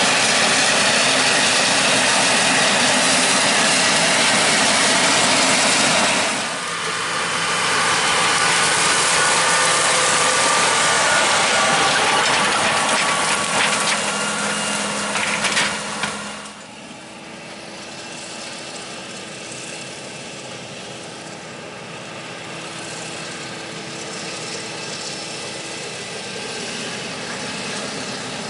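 Claas Jaguar 970 forage harvester chopping standing corn for silage, its engine and cutterhead running loud and steady. About six seconds in, a Case IH tractor pulling a silage wagon passes close by, with a few clattering knocks near the end of its pass. About sixteen seconds in, the sound drops to the harvester working at a distance with a steady engine hum.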